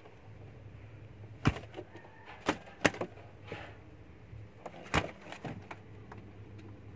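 A few sharp claps and knocks as a domestic pigeon flaps and moves about in a wooden loft box. The loudest come about one and a half, two and a half, three and five seconds in, with lighter ones between, over a low steady hum.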